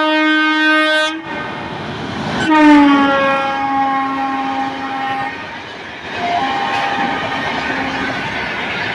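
Indian Railways electric locomotive's horn sounding loud and long, breaking off about a second in. A second blast starts about two and a half seconds in, dipping in pitch at its start as the locomotive passes, and a fainter tone follows later. Through the second half the passing coaches' wheels rumble and clack over the rails.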